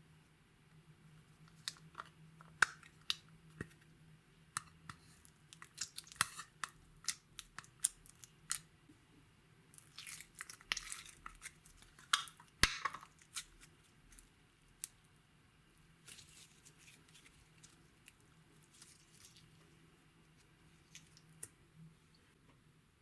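Close-miked crackles and clicks from slime and makeup being handled: scattered sharp sticky clicks, with a denser run of crackling about ten seconds in that lasts some three seconds.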